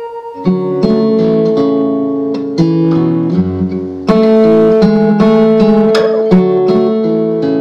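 Background music of plucked acoustic guitar, with a new chord struck every second or two.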